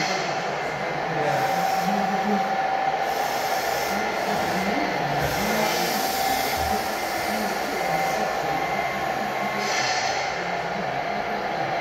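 Steady whirr of a radio-controlled scale Land Rover Defender crawler's electric motor and gears as it creeps over a metal truss bridge, under a low murmur of voices.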